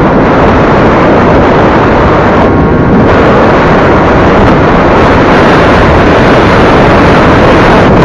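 Heavy wind buffeting on an EKEN H9R action camera's built-in microphone while riding a scooter at road speed: a loud, continuous rushing noise, strongest in the low end, that drowns out everything else.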